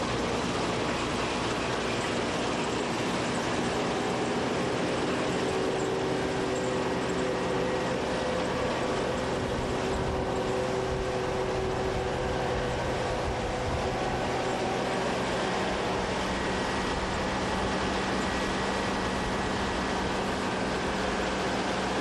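DEUTZ-FAHR PowerLiner Climber combine harvester running while it harvests. Its engine and threshing machinery make a steady, unbroken din with several steady humming tones.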